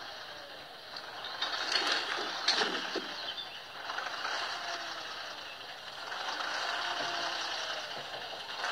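SAME Laser 110 tractor running as it drags a heavy load of logs, with the mechanical rattle of the hitch and load and a few sharp clanks and creaks about two to three seconds in.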